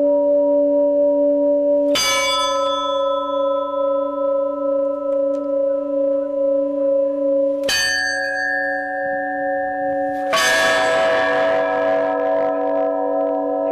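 Russian Orthodox church bells struck one stroke at a time, heard close up from inside the bell tower. Fresh strokes come about 2 and 8 seconds in, then a louder, clanging stroke about 10 seconds in, each left to ring on with a wavering hum. The bells are being tried out while the chimes are set up on a new belfry.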